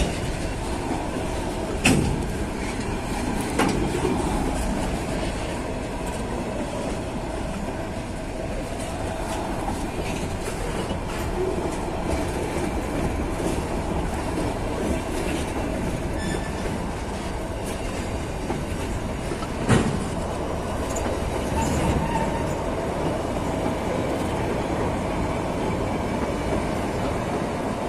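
Empty freight wagons, hopper and gondola cars, rolling past close by: a steady rumble of wheels on rail with a faint steady wheel squeal. Sharp knocks sound about two seconds in, again a moment later, and once near twenty seconds in.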